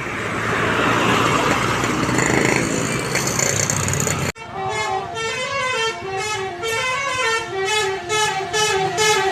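Loud noisy vehicle sound, cut off suddenly about four seconds in, followed by an Indonesian bus 'telolet' multi-tone Basuri horn playing a stepping melody of short, steady notes that rise and fall.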